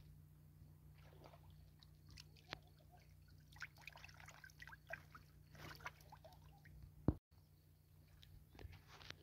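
Quiet lakeshore with faint scattered rustles and clicks, and a single sharp knock about seven seconds in followed by a brief dropout.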